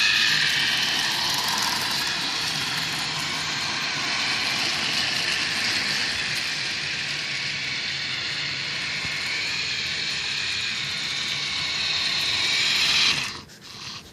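Motorised model freight train running on its track at normal speed, a steady whirring noise that cuts off abruptly near the end.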